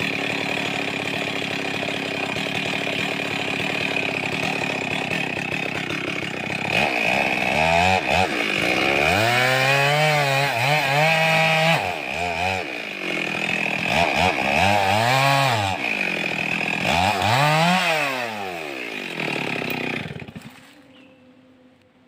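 Two-stroke chainsaw running steadily, then revved up and down several times, with pitch climbing and dropping, before it shuts off about 20 seconds in.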